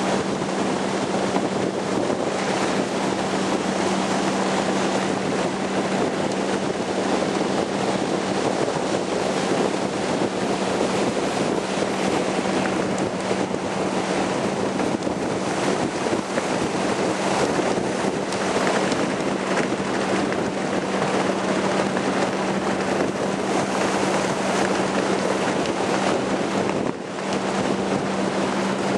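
Wind buffeting the microphone and water rushing past the bow of a moving boat, a dense steady noise over a low steady drone; it dips briefly near the end.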